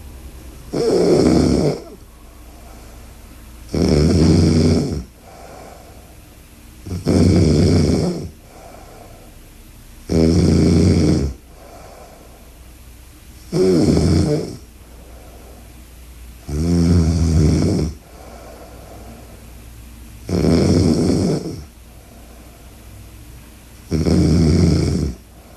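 A woman sleeping on her side, snoring loudly: eight snores, each about a second long and coming about every three seconds, with a fainter breath between each pair.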